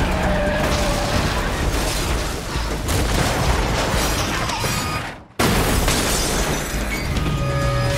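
Action-film soundtrack mix of booming crashes and vehicle noise over a music score. The sound drops out suddenly about five seconds in, then slams back in with a heavy crash as a speedboat comes down on a car's roof.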